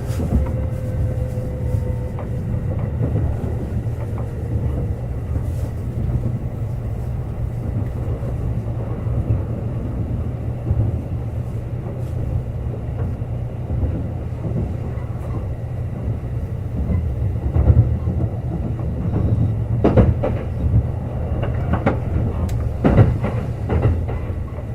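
Kintetsu Urban Liner Plus limited-express train running at speed: a steady low rumble of wheels on rail, with a few louder clacks over rail joints about 20 and 23 seconds in.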